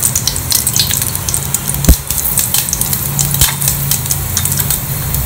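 Mustard and fenugreek seeds sizzling and crackling in hot oil in a stainless steel pot: the tempering for sambar. A single sharp knock about two seconds in is the loudest sound.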